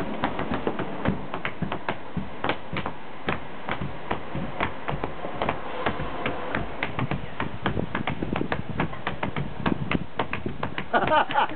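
Open palms slapping a concrete block wall, many quick sharp slaps tapping out a clave rhythm. A louder burst of voices comes near the end.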